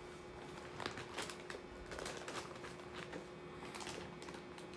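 Faint scattered clicks and light rustling from a plastic model kit's bagged runners being handled, over a faint steady hum.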